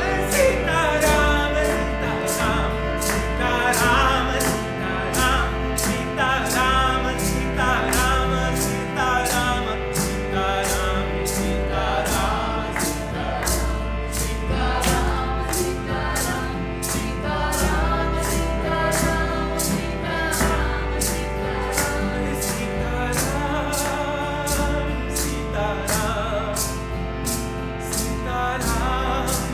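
Group devotional sankirtan singing, a Hindu chant to Hanuman and Sita-Ram, over a steady held drone. A sharp percussive click keeps a regular beat of about two strokes a second.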